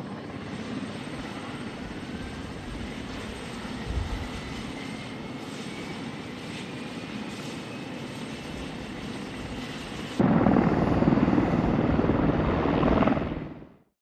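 Marine One, a VH-60N White Hawk helicopter, running on the ground with its rotors turning, a steady engine-and-rotor noise with a faint rising whine. About ten seconds in the sound jumps suddenly louder, then fades out near the end.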